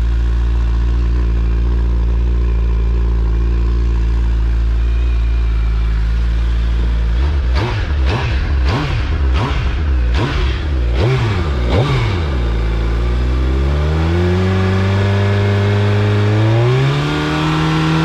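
Stock 2022 Suzuki Hayabusa's inline-four on its factory exhaust, idling steadily while still cold from a cold start. About seven seconds in it is blipped through a string of quick revs, then held at raised revs that step up again near the end.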